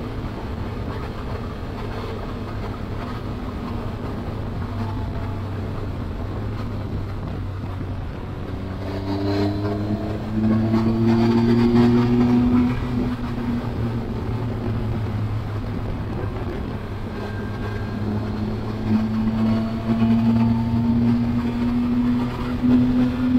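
Triumph Tiger 1200 Explorer's three-cylinder engine running at road speed under a steady rush of riding noise. The engine note rises and grows louder about nine seconds in and again from about nineteen seconds on, as the bike pulls harder.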